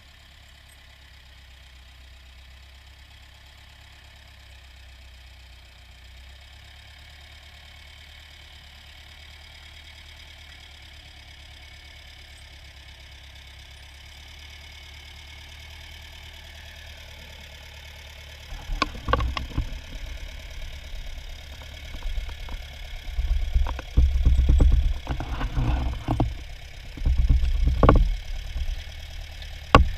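Ford farm tractor engine running steadily and slowly growing louder. From about two-thirds of the way through, loud, irregular low thumps and knocks come in over it.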